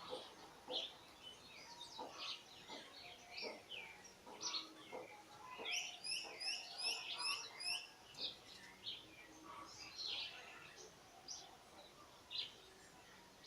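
Songbirds chirping and calling throughout, with a quick run of evenly repeated high notes, about four or five a second, midway through.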